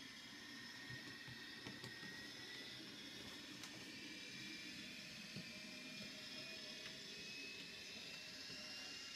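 Faint whine of a model railway locomotive's electric motor, slowly rising in pitch, with a few light clicks from the track, over a steady hiss.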